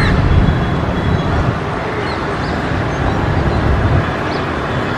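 Steady outdoor background of hiss and uneven low rumble, with a few faint bird chirps.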